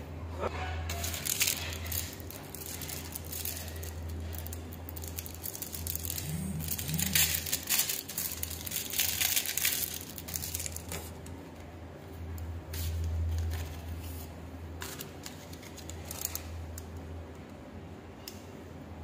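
Clear plastic packaging crinkling and rustling in irregular bursts as it is handled and torn open to take out a novelty shocking pen.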